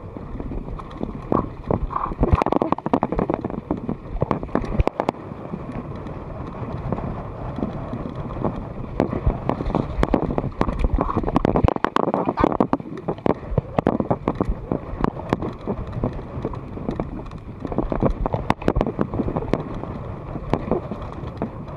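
Mountain bike ridden fast down a dirt singletrack, heard from a chest-mounted camera: tyres rolling over dirt and dry leaves, the bike rattling with many sharp knocks over bumps, and wind buffeting the microphone.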